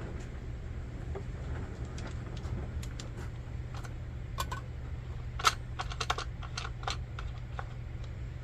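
Scattered light clicks and clinks of small hard parts being handled and sorted, busiest and loudest a little past the middle, over a steady low hum.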